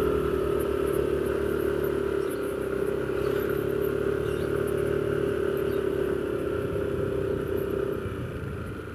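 Yamaha NMAX 155 scooter's single-cylinder engine running steadily while riding at an even speed, with a steady whine; it gets quieter near the end.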